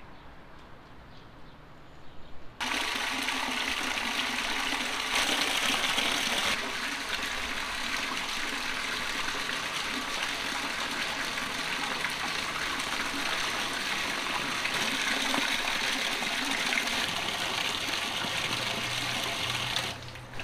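Water gushing steadily from a pipe into a large steel dough-mixer bowl and splashing onto the water pooling in it, as the mixer is filled for barbari bread dough. It comes in suddenly about two and a half seconds in and stops just before the end.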